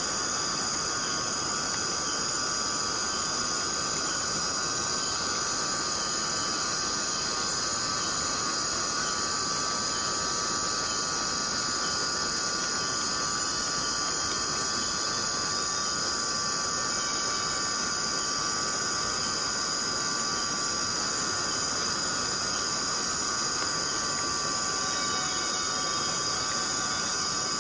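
Tropical rainforest ambience: an even hiss of falling rain under a continuous insect chorus holding steady high tones.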